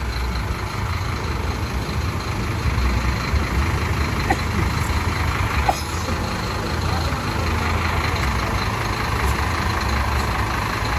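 Diesel engine of a Scania K310IB coach idling with a steady low rumble.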